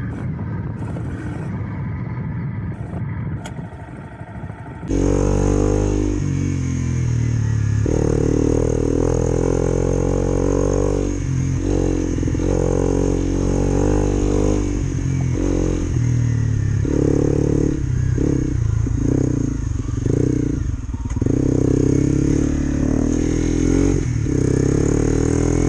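Honda CRF250 Rally's single-cylinder engine running as the bike is ridden, first with a rougher, noisier sound on a dirt track. About five seconds in it turns louder and steadier, the engine note dipping and picking up again several times.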